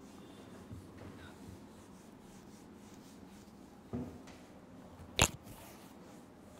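Faint rubbing of a felt duster wiping a whiteboard, with a small knock about four seconds in and a single sharp click about a second later.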